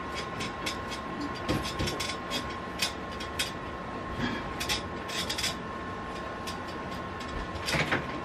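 Irregular clicks and knocks over a steady hum with a thin high tone, with a louder cluster of knocks near the end.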